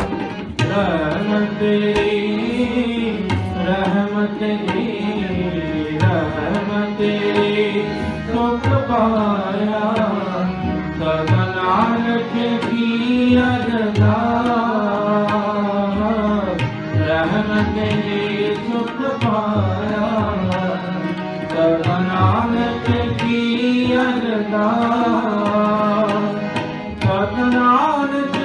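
Sikh kirtan: voices singing Gurbani over harmonium with tabla drumming throughout.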